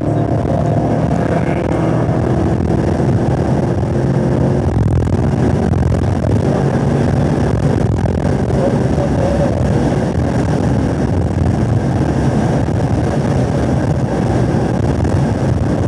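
2017 Camaro SS 1LE's V8 under hard acceleration in one gear, heard from inside the cabin, its note climbing as revs rise toward about 5,800 rpm along with wind and tyre noise. Near the end the driver comes off the throttle and brakes for the next corner.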